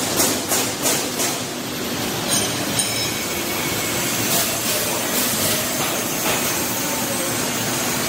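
Chocolate coating pans and melting-tank motors running: a steady machinery noise with irregular knocks and clatter, most of them in the first second and a few more about halfway through.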